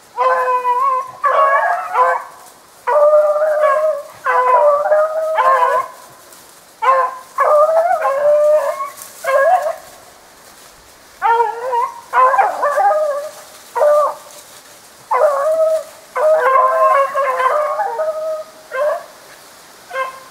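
Beagles baying as they run the track of a snowshoe hare: loud, drawn-out howling bawls coming in repeated bursts of a second or two with short breaks.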